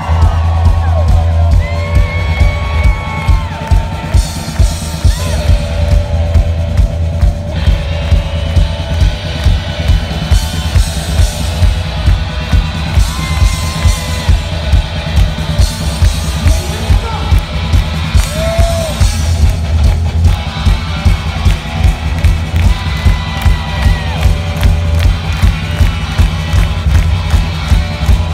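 Live rock band of electric guitar and drum kit playing loudly, the drums keeping a steady beat of about two hits a second under the guitar.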